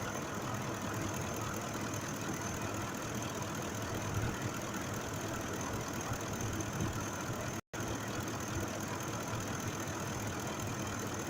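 Ford 5.4 V8 engine of a 2005 F-150 idling steadily, the cylinder 2 misfire from a mechanically faulty injector no longer present. The sound cuts out for a moment about two-thirds of the way through.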